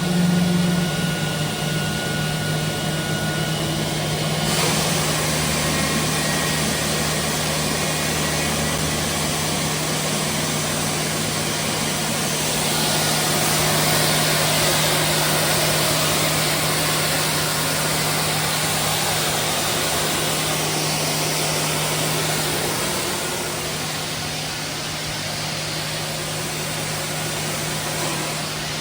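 Boeing 777F GE90-110 turbofan start with a jet air starter running: a steady low hum under a rushing jet noise that swells suddenly about four seconds in and stays strong.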